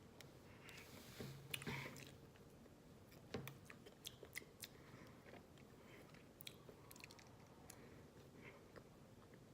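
Faint mouth sounds of chewing a piece of chewy Champion toffee, with scattered small clicks and a couple of louder taps about one and a half and three and a half seconds in.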